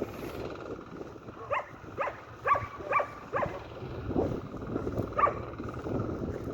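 A dog barking, a series of about seven short barks a half-second or so apart, over a steady low rumble.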